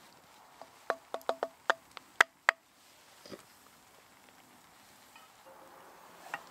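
A quick run of about eight sharp metallic clinks in under two seconds, each with the same short ring, as metal knocks against a cast-iron Dutch oven. A single softer knock follows about a second later.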